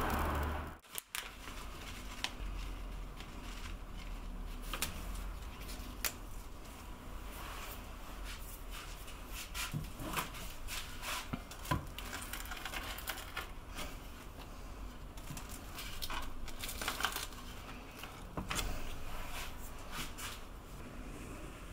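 A gas pizza oven's burner runs as a loud steady noise that cuts off about a second in. After that come scattered clicks, taps and rustles of handling on a wooden cutting board as toppings go on and the pizza is cut.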